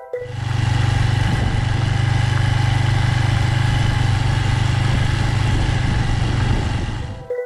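Motorcycle engine idling with a steady, even pulse, heard close up from a camera mounted on the bike's front fork. The sound starts and cuts off abruptly.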